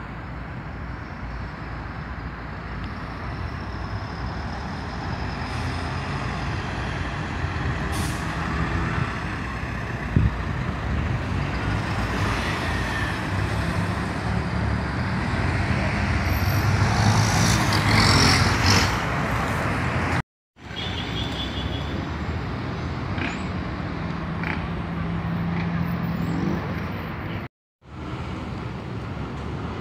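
City bus, a Volkswagen 17-230 OD, running with its diesel engine as it drives close past, with a hiss of air from its brakes about 17 to 19 seconds in. After two brief cuts to silence there is street traffic, with a bus engine approaching in the distance.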